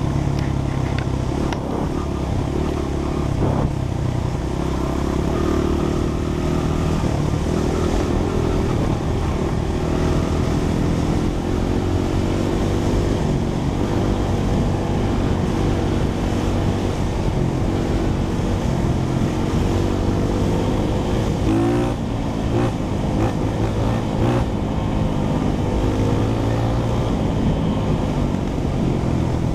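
Honda CRF100F dirt bike's single-cylinder four-stroke engine running on a trail ride, its pitch rising and falling as the throttle is worked, with wind and trail noise on the bike-mounted microphone.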